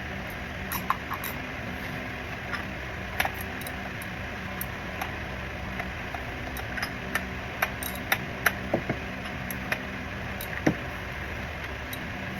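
Metal hand tools clicking and clinking at irregular intervals, a socket wrench and extension being handled and fitted on a tight fastener under a car, over a steady low hum. The sharpest clicks come in the second half.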